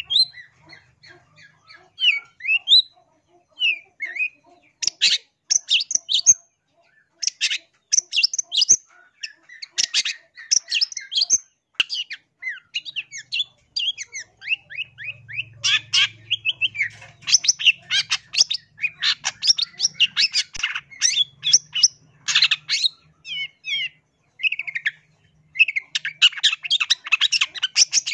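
Long-tailed shrike (cendet) singing: rapid runs of short, scratchy chattering notes mixed with quick rising whistles, in bursts separated by brief pauses, the phrases growing denser near the end.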